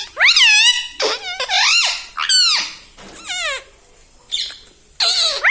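Ring-necked parrot giving a run of about six short, high calls, each swooping up and down in pitch, with brief pauses between them.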